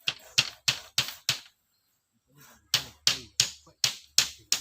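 Rapid blows of a hand tool on bamboo or wood, about three a second: a run of five, a pause of about a second and a half, then a longer run of about eight.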